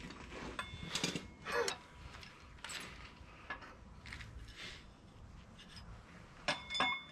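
Hand tools clinking and scraping against metal engine parts as fasteners on a 5.3 LS engine are worked loose, scattered knocks with a louder pair of ringing metal clinks near the end.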